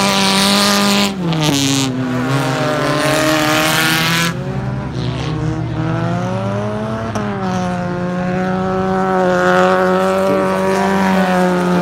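Stock car engines running hard on a dirt track, their pitch dropping about a second in as a car lifts off and climbing again around seven seconds as one accelerates. A rushing hiss sits over the engines for the first four seconds.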